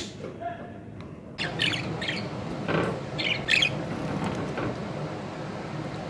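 Budgerigar giving a few short, squawky chirps, with splashing from bathing in a shallow dish of water.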